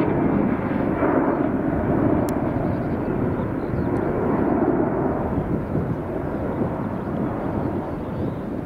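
Airbus A321 airliner's jet engines: a steady rush of jet noise, easing slightly over the last few seconds.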